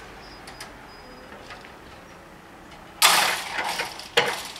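Level-crossing barrier boom with a hanging lattice skirt coming down. About three seconds in it lands at its stop with a sudden loud clatter that rings away, followed a second later by another sharp knock.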